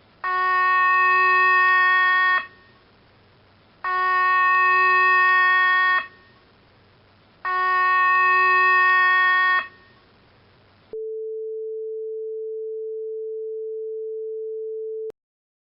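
Emergency alert broadcast tones: three identical electronic tone bursts of about two seconds each, every burst a steady chord of several pitches, then a single steady lower tone held for about four seconds that cuts off suddenly.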